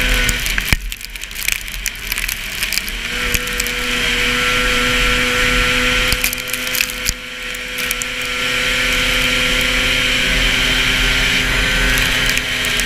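A 440 Super Stock race snowmobile's two-stroke engine running hard under racing throughput, heard on board with heavy wind hiss. It drops off with a sharp knock just under a second in, comes back on about three seconds in and climbs steadily, with another brief dip around seven seconds.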